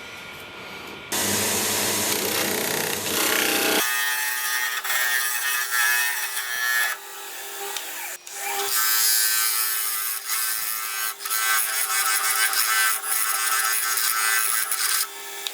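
Wood lathe spinning a bowl blank while a turning tool cuts and scrapes the wood, with a steady motor tone under the rasping.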